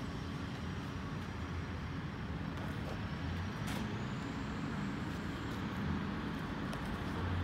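Steady low rumble of distant city road traffic.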